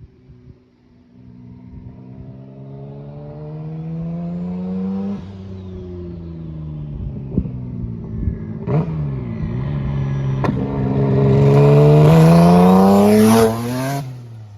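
Turbocharged Mazda MX-6 engine under hard acceleration: the revs climb, fall back at a gear change about five seconds in, then climb again to a loud peak with a rising high turbo hiss before cutting off suddenly when the throttle is lifted near the end. Two sharp cracks are heard midway.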